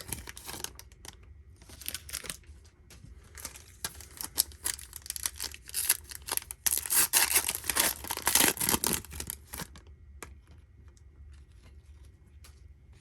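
Wrapper of a 2021 Donruss Optic baseball card pack being torn open and crinkled, a dense crackle that is loudest a little past the middle and dies down to light rustling about ten seconds in.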